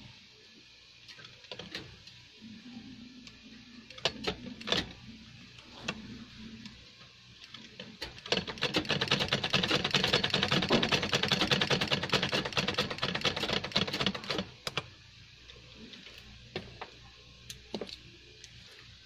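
Sewing machine stitching through denim in one rapid, even run of about six seconds, starting about eight seconds in. Before and after it there are scattered clicks and rustles as the jeans are handled.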